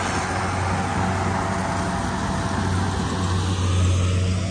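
Rice combine harvester running steadily, a low, even engine drone.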